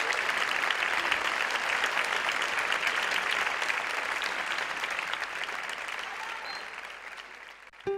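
Theatre audience applauding at a ballet curtain call, a dense patter of clapping that fades away near the end. A brief pitched tone sounds sharply right at the end.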